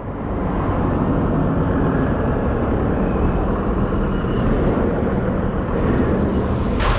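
Steady low rumble of bus engines and traffic, with no clear single event.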